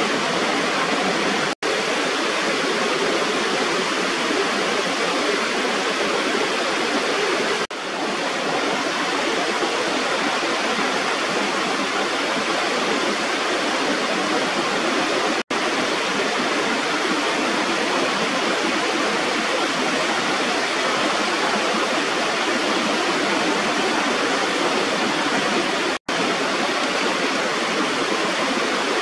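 Steady rushing of a small waterfall: water spilling over a raised rubber weir on an irrigation channel. The rush is broken by four split-second gaps.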